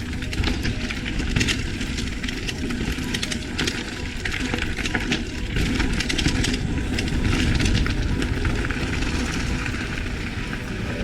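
Mountain bike clattering over a rough trail: a dense run of rattles and knocks from the bike, over a steady low rumble of tyres and wind.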